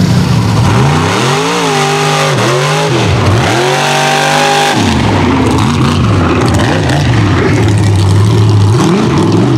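Mud racing super truck's engine revving hard and unevenly as the truck drives through the mud course. The revs climb and fall several times, peak about halfway through, drop away sharply, then run lower and steadier with one more dip near the end.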